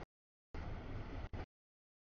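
CSX double-stack freight train's cars rolling past, a steady noise of wheels on rail. It is heard for about a second in the middle, with the audio dropping out to total silence before and after.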